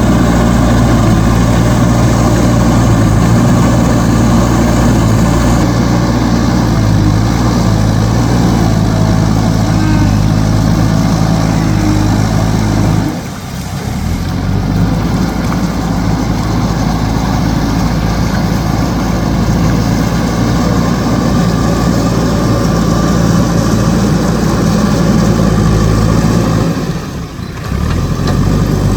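Diesel engine of a JCB backhoe loader running steadily under work, with a deep, even low hum; the sound drops off briefly twice, about halfway through and near the end.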